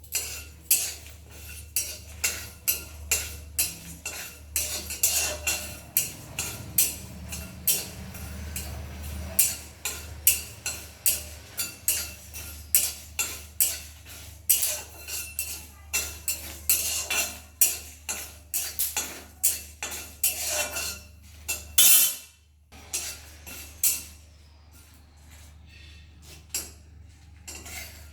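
Spatula stirring whole spices (dried red chillies, cumin and coriander seeds) frying in a pan, scraping and knocking against the pan about twice a second. The strokes stop a couple of seconds after one louder knock near the end, over a steady low hum.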